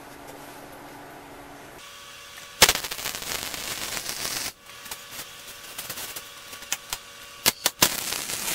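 MIG wire-feed welder arc welding steel: after a steady hum, the arc strikes with a sharp crack about two and a half seconds in and then crackles and sputters with sharp pops, stopping briefly halfway through before starting again.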